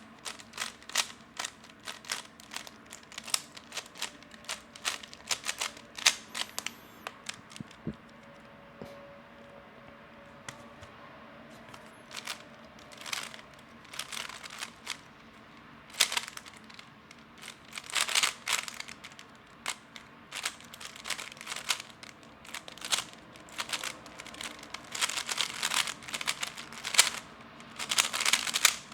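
Magnetic 3x3 speedcube being turned fast during a timed solve: dense runs of quick plastic clicks and clacks as the layers snap round, with a few seconds' lull in the turning about a third of the way in. The cube is lubed, loosened and set to strong magnets.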